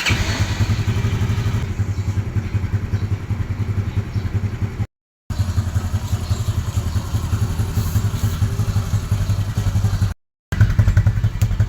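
Rusi Surf 125 motorcycle's small single-cylinder engine running at a steady idle with a fast, even putter. The sound drops out completely twice for a moment.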